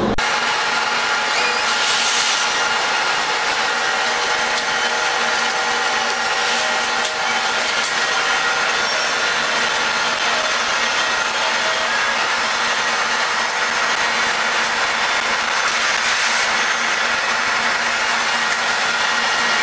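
Steady woodworking-shop machinery noise, an even din with a few faint steady tones and almost no bass, starting abruptly.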